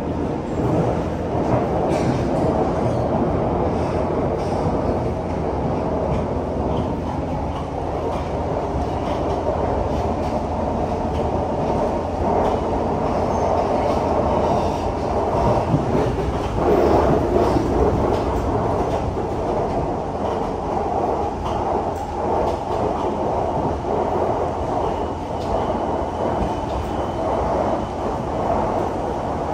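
Siemens C651 metro train heard from inside the car, running as it pulls out of a station and along the line: a steady rumble of wheels and running gear with scattered clicks from the track. A faint high whine comes in near the end.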